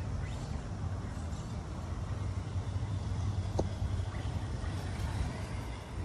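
Axial Capra RC rock crawler with a Hobbywing Fusion 1800kv brushless motor, driving over rocks: a steady low motor and drivetrain hum, with one short tick about three and a half seconds in.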